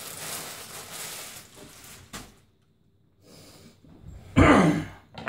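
Plastic bubble packing rustling as it is handled, then a sharp click about two seconds in. Near the end a loud, breathy vocal sound from the man lasts about half a second.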